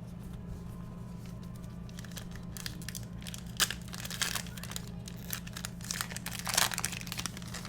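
A baseball card pack wrapper being torn open and crinkled, in irregular bursts of crackling over the second half.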